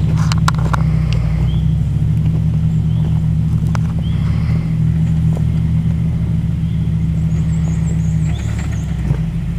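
Jeep Wrangler TJ engine running steadily under load as it crawls up a steep, rutted dirt hill, with a few sharp knocks in the first second. The engine note changes and eases off about eight seconds in.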